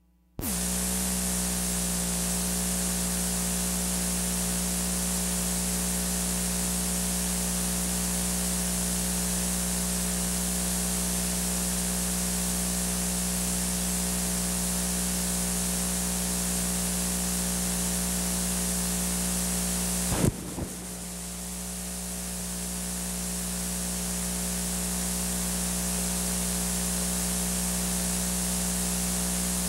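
Playback noise from a blank stretch of half-inch videotape's sound track: a steady hiss with a low electrical hum, cutting in abruptly at the start. About twenty seconds in there is a brief crackle, after which the hiss drops and fades back up over a few seconds.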